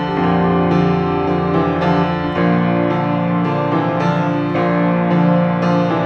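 Background instrumental music led by a piano-like keyboard, held notes and chords changing about every second.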